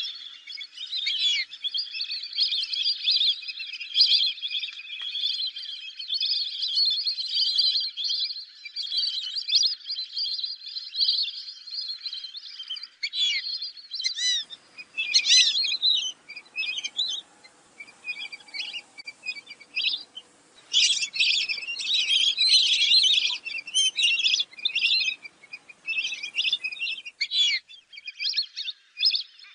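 A flock of fulvous whistling ducks calling: many high-pitched whistles overlapping into a dense chorus. About halfway through, the calls break into shorter separate bursts over a faint background hiss.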